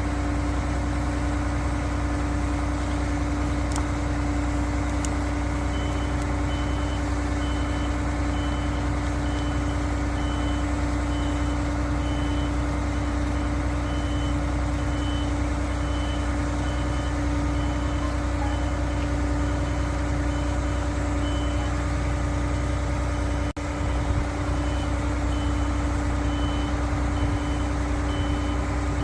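Concrete pump truck's diesel engine running steadily, joined several seconds in by a high warning beeper sounding about once a second.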